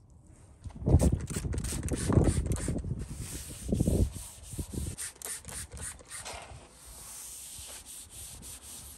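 A folded paper towel rubbed back and forth over a bare-metal motorcycle fuel tank, a run of scrubbing strokes that is loudest in the first few seconds and then settles into a lighter, steady swishing.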